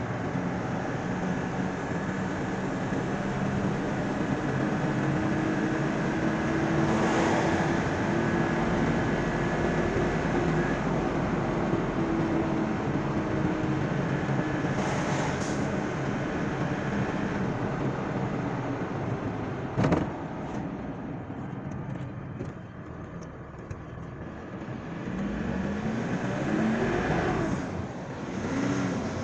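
A car's engine and tyre noise heard from inside the moving car, a steady rumble with the engine note slowly rising and falling. There is a sharp click about twenty seconds in. The sound eases off briefly, then the engine note climbs several times in quick succession near the end as the car speeds up again.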